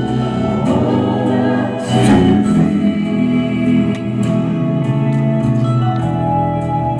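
Live band playing a slow instrumental passage with sustained chords.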